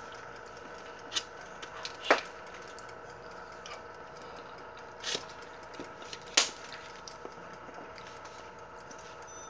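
A metal fork digging into a baked potato and knocking against a paper plate: four or five sharp clicks spread over several seconds, the loudest about six seconds in, over a steady hum holding several tones.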